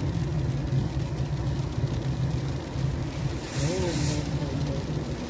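Inside a moving car on a wet road, the engine and tyres give a steady low rumble. About three and a half seconds in, a windscreen wiper sweeps the glass with a brief swish.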